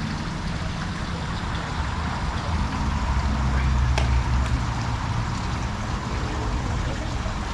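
Steady rush of water flowing at a canal dam, with a low rumble underneath and a light click about four seconds in.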